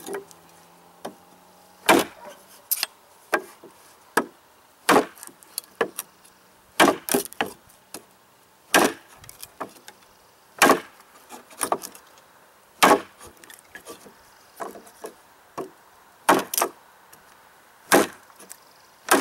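A large flat-ground ESEE Junglas knife chopping into a hard knot in a 2x2 board to break it out: about twenty sharp wooden chops at an uneven pace, some in quick pairs, with splintering.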